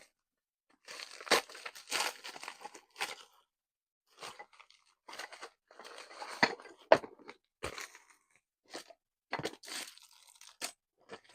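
Plastic packaging being handled and torn open, crinkling and crackling in uneven bursts, with a few sharp knocks in the second half.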